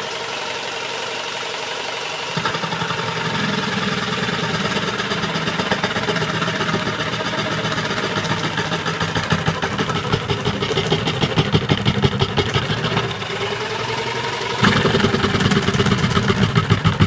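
Electric jigsaw mounted upside down in a home-made table, running on a low speed setting (power 2). It hums steadily at first, then about two seconds in the blade starts cutting a wooden board with a fast rattling chatter of strokes. The cutting eases briefly about two-thirds of the way through and comes back louder near the end.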